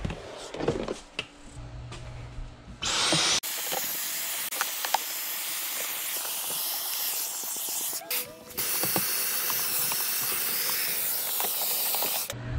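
Dyson cordless stick vacuum switching on with a quick rising whine about three seconds in, then running steadily with a loud hiss as it sucks up dirt from the car's footwell carpet, briefly cutting out and resuming near eight seconds. Before it starts, light rustling as the floor is handled.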